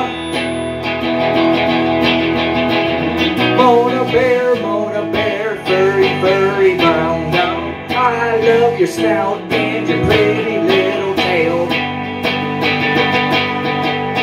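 A man singing into a microphone over his own electric guitar playing, a live solo rock performance.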